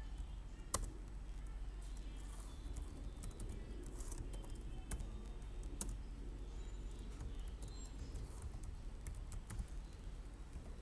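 Typing on a computer keyboard: irregular, quick keystrokes, with one sharper click about a second in.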